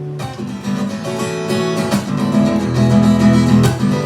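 Acoustic guitar strumming chords between sung lines of a love song, with no vocal.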